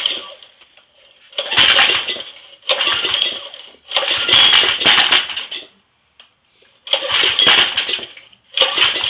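Briggs & Stratton engine on a Craftsman pressure washer being pull-started again and again, about five recoil pulls, each cranking it in a short burst without it keeping running. The carburetor is fouled with oil and the engine still tries to fire on starter fluid.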